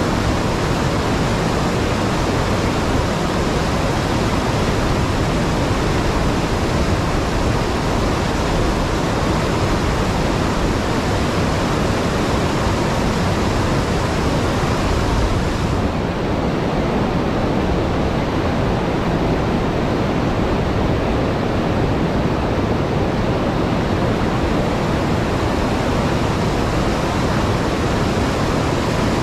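River water pouring over a low dam and churning through whitewater below it: a steady, unbroken rushing.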